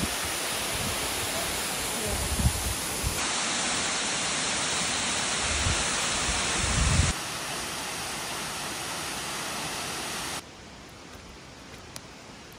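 Waterfall rushing: a steady wash of falling water, its level jumping abruptly about 3, 7 and 10 seconds in, then quieter in the last couple of seconds. A few low rumbles on the microphone.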